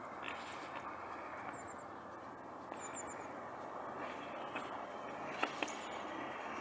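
Tractor and hay baler running steadily at a distance, with a few short high bird chirps and two sharp clicks about five seconds in.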